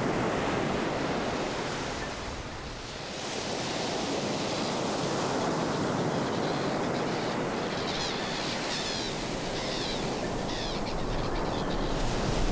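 Surf washing onto a beach in a steady rush that eases briefly about two seconds in. Short, high bird calls are repeated in the second half.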